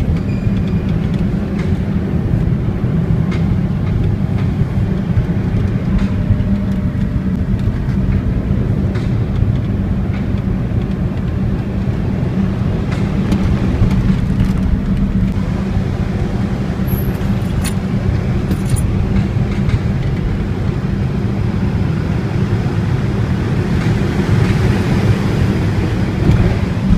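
Moving car's steady road noise with a low, constant drone, recorded to catch a strange noise from the rear suspension. A few faint ticks come through now and then.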